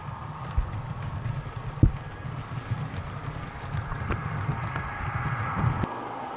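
Model train running on the layout's track: a low rumble with a few sharp clicks, the rumble stopping suddenly near the end.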